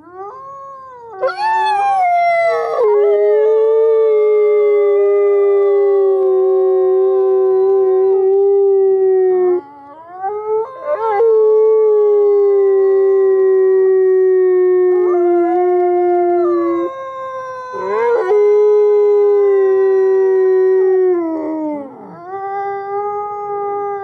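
Gray wolf howling: four long howls in a row, each sliding up into a held steady note that sinks at the end, with brief higher sliding calls crossing them.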